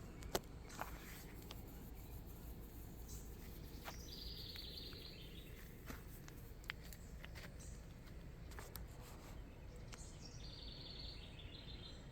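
Outdoor garden ambience with a songbird singing a short phrase of rapid high notes twice, about six seconds apart, over a low steady background noise; a sharp click sounds just after the start.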